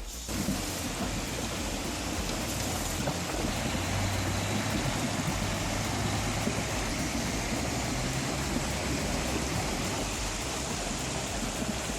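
Rushing stream water as a loaded logging truck fords it, a dense steady wash with the truck's engine running low underneath. The sound comes in sharply just after the start.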